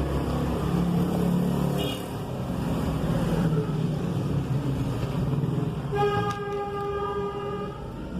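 Street traffic: a motor vehicle's engine runs with a low rumble, and about six seconds in a vehicle horn sounds one steady note for almost two seconds.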